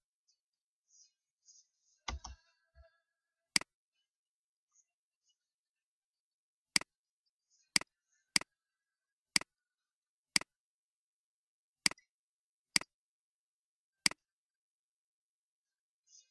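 Sharp single clicks of a computer mouse, about nine in all, most about a second apart in the second half. A short low thump comes a couple of seconds in.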